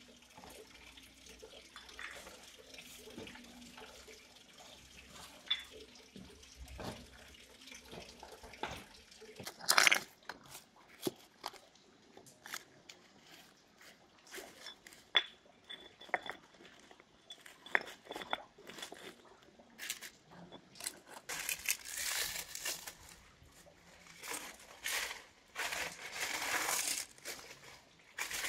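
Flat stones clacking as they are picked up and set down on rock, with dry twigs and brushwood crackling; longer stretches of crunching and rustling in the last third as the dry sticks are gathered by hand.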